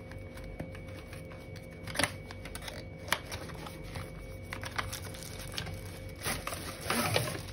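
Small cardboard box being opened by hand: the flaps and cardboard insert rustle and scrape, with many small clicks and taps. The two sharpest clicks come about two and three seconds in.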